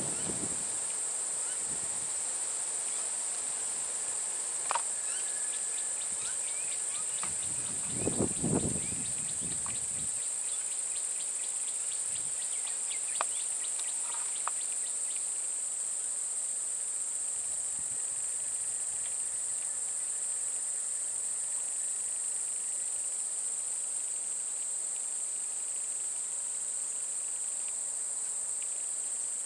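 Steady, high-pitched drone of an insect chorus, even and unbroken, with a short low burst about eight seconds in and a few faint clicks.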